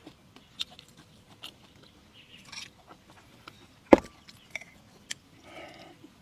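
Scattered light clicks and taps, with one sharp, much louder knock about four seconds in.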